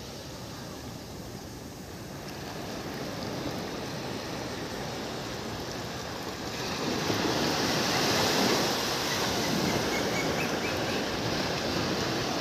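Sea surf washing up a sandy beach: a steady hiss of water that swells louder about six and a half seconds in.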